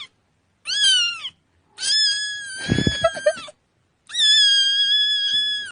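A cat meowing three times: a short meow that rises and falls, then two long, drawn-out meows.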